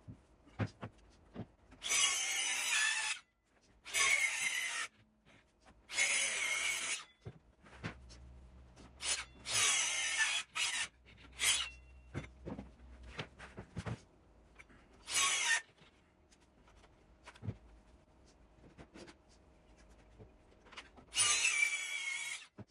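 A series of scraping, rasping strokes on oak, each lasting about a second, with light knocks and taps in between.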